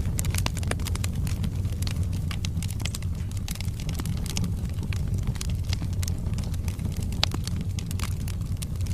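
Wood fire burning in a fireplace: a steady low rumble of flames under frequent sharp crackles and pops from the burning logs, with one louder pop a little after seven seconds in.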